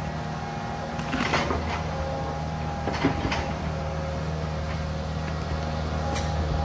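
Tracked John Deere excavator's diesel engine running steadily while the bucket digs, with short scrapes and knocks about one second and three seconds in.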